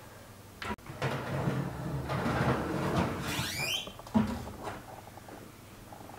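A kitchen cupboard door being opened: a sharp click a little under a second in, then a few seconds of rustling handling noise with a short squeak falling in pitch, and a dull thump just after four seconds.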